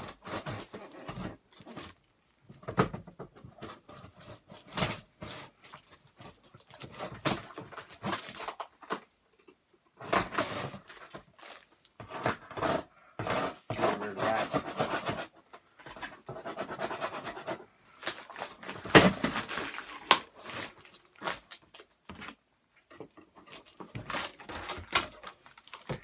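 A large cardboard shipping box being handled and opened: irregular scraping, rubbing and rustling of cardboard with short knocks, in bursts with brief pauses, the loudest knock about 19 seconds in.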